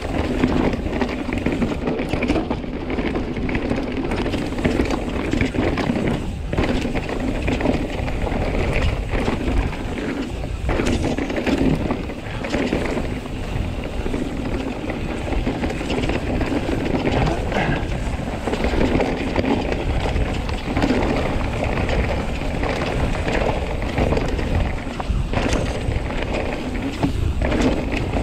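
Commencal Meta mountain bike riding fast down a dry dirt trail: continuous tyre noise on dirt, with the chain and frame rattling and knocking over bumps.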